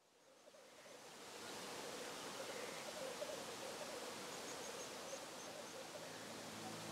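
Open-air background noise fading in from silence over the first second or two, then a steady, even hiss, with a faint run of short high chirps a little past the middle.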